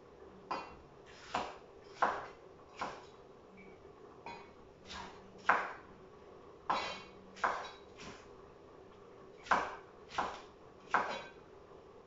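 Kitchen knife slicing vegetables on a cutting board: about thirteen sharp knocks of the blade on the board at an uneven pace, roughly one a second, over a faint steady hum.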